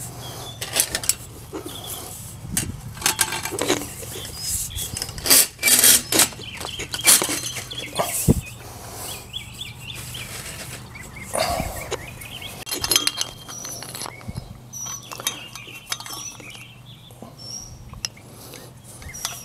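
Irregular metallic clinks and knocks of chain-link fence pipe and fittings being handled: a top-rail pipe slid into the swaged end of another, then a cast rail-end fitting fitted against a metal pipe sleeve and band.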